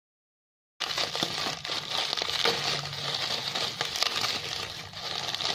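Clear plastic bags of minifigure parts crinkling and rustling as they are handled, with scattered small clicks. The sound cuts in suddenly about a second in.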